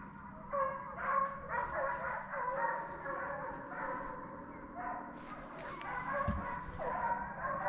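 A pack of deer hounds baying and yelping on a trail, many voices overlapping.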